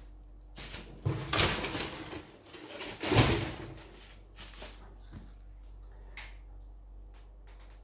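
Packaging being handled by hand: rustling and bumping as film packages are taken out of a cardboard box, loudest about one second and three seconds in, then a few small clicks and taps.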